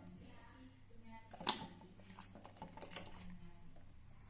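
Faint handling clicks and taps, one sharper click about one and a half seconds in and a few lighter ones after it, typical of a plastic shampoo bottle and its cap being handled while it is poured into the mixture.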